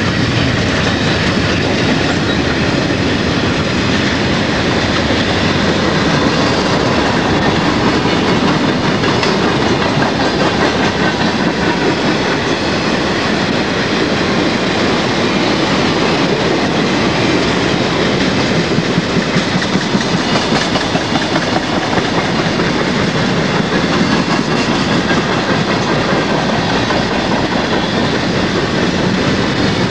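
Freight cars of a passing mixed freight train (covered hoppers, boxcars and tank cars) rolling by close at speed: a steady, loud rumble of steel wheels clacking on the rails.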